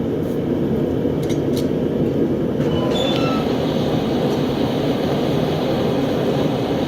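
A farrier's forge running with a steady rushing noise while a horseshoe heats to welding temperature for a forge weld.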